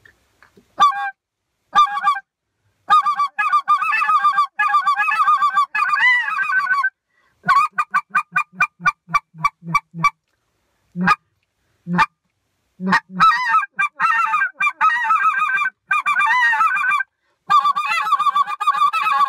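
Homemade duck call on an Echo insert with a modified, softer reed, blown in runs of quacks. It starts with two short notes and a long string, then a series of separate short quacks at about four a second, a few single notes, and more long strings near the end. The caller finds it still needs work and is not quite as clean as he'd like.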